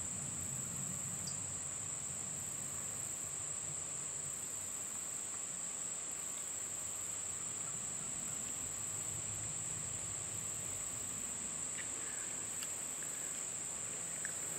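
Steady chorus of insects trilling, one continuous high-pitched drone with no break.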